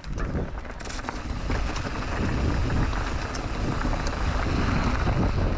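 Canyon Neuron mountain bike rolling down a dirt and stony trail: wind rushing on the microphone and tyres crunching over dirt and small stones, with scattered small knocks and rattles. It starts suddenly and grows louder over the first couple of seconds, then holds steady.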